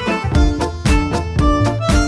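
Background music: an upbeat tune with fiddle and a steady beat.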